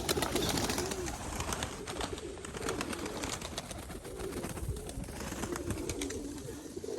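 Several Mykolaiv pigeons cooing together in a loft, their overlapping low coos running on, with scattered light clicks.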